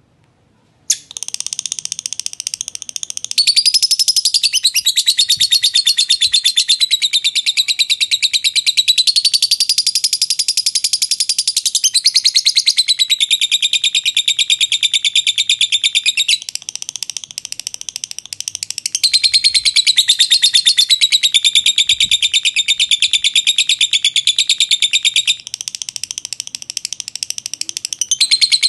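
Fischer's lovebird singing 'ngekek': one long, unbroken run of rapid, high-pitched chattering that starts about a second in and goes on for nearly half a minute without a pause for breath, louder and softer in stretches.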